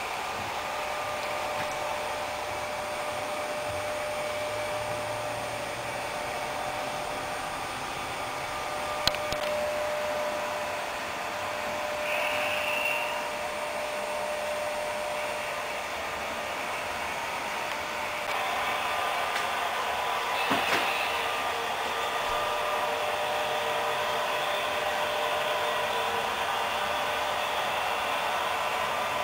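Steady mechanical whirring hum with a faint constant whine, growing a little brighter about two-thirds of the way through, and a couple of light clicks.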